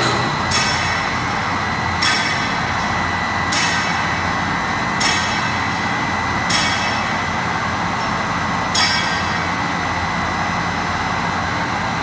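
TSJ-7200L stainless-steel mixing tank running empty: a steady machine hum with a high whine, and a light metallic click about every one and a half seconds that stops about nine seconds in.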